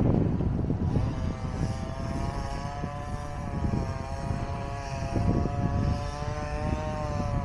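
A steady mechanical drone with a slightly wavering pitch comes in about a second in and holds. Beneath it runs a low rumble of wind and traffic.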